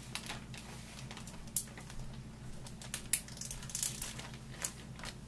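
Plastic zip-top freezer bag crinkling and crackling in irregular bursts as it is handled and pressed shut, with beef and marinade inside.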